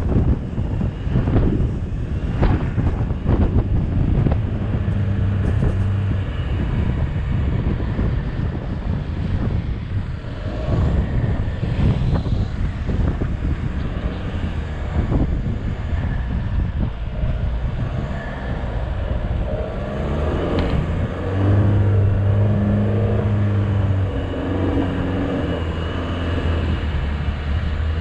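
4x4 SUV engine running under load while driving through soft desert sand, with a steady rumble. The engine note grows louder and holds about three quarters of the way through.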